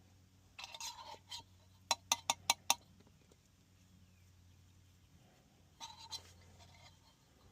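Hand work on a plastic condensate drain line while a cracked trap is being replaced: short scraping and rustling of tools and parts, then five quick sharp clicks in under a second, then another brief rustle.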